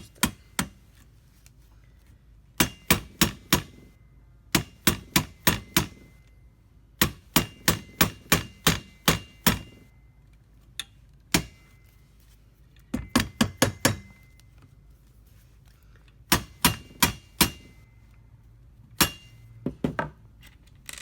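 An AR-15 handguard being tapped into place on the upper receiver with a hammer: groups of quick, sharp taps, several a second, broken by short pauses, with a single lone tap about halfway through.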